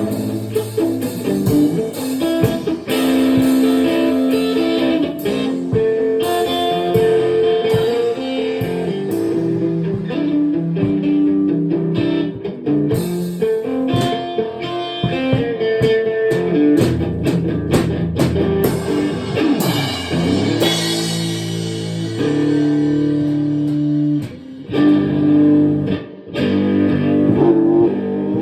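Guitar playing: held chords and picked notes that change every second or so, with a swooping pitch bend about twenty seconds in.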